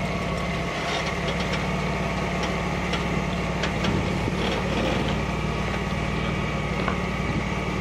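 Jeep engine running steadily at low revs, with a few light clicks over it.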